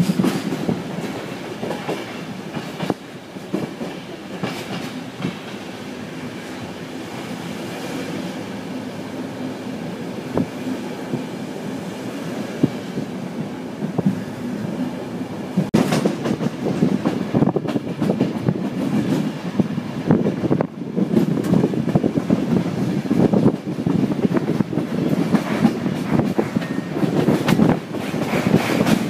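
CityNightLine coach running on the track, heard from aboard: a steady rumble with wheels clicking over rail joints. From about halfway the clatter turns louder and denser as the wheels knock over the pointwork.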